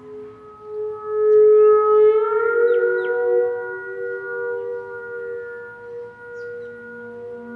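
Theremin music: long held notes that slide slowly in pitch, swelling louder about a second in as the melody glides upward.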